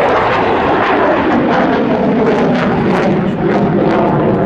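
F-16 fighter's single turbofan jet engine in flight, giving loud, steady jet noise with a crackle running through it.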